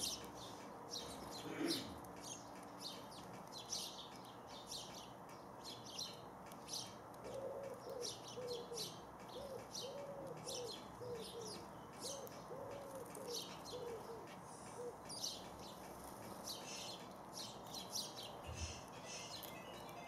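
House sparrows chirping busily, many short high chirps throughout. A pigeon coos a repeated low phrase from about seven to fourteen seconds in.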